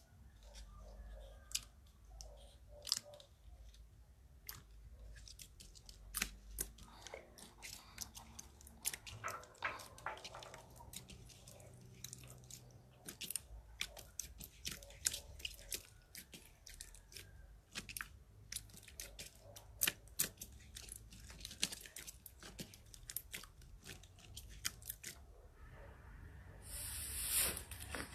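Crunchy slime being squeezed and poked, making a run of irregular crackling clicks and pops. A short hissing burst comes near the end.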